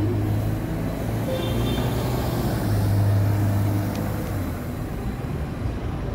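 ADL Enviro200 single-deck bus's diesel engine running as it drives along and away up the road, a steady low hum that swells about three seconds in, with other street traffic.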